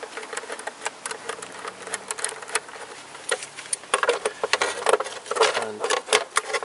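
Ratchet wrench clicking rapidly as the Torx bolts holding an engine cover are turned out, mixed with small knocks of tool and gloved hands on the cover. The clicking grows denser and louder about four seconds in.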